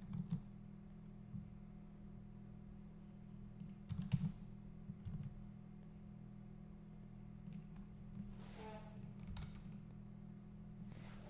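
A few computer keyboard keystrokes and mouse clicks, near the start and again about four and five seconds in, over a steady low hum.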